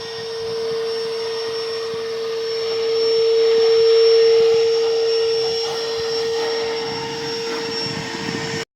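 Goat milking machine's vacuum pump running with a steady hum and hiss, then cutting off abruptly near the end.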